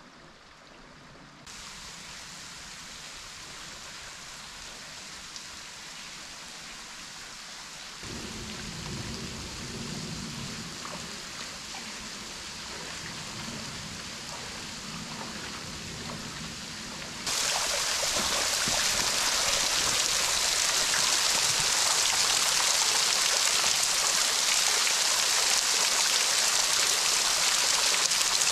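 Steady rush of running water from a shallow creek, which steps up abruptly in loudness about a third of the way in. About two-thirds in it becomes much louder and higher, a rain-like spatter of water pouring and dripping off the rock face over the tunnel mouth.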